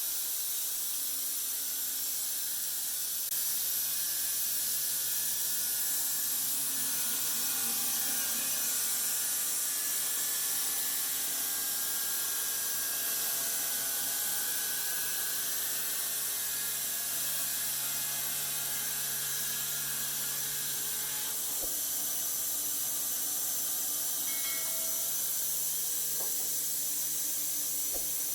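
Woodworking machinery running steadily: a constant hiss over a faint low hum, with faint whining tones that drift slightly in pitch.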